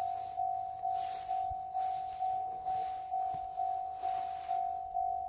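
Railway level crossing warning bell ringing, a single-pitched electronic 'kan kan' struck a little over twice a second, each strike fading: the signal that a train is approaching.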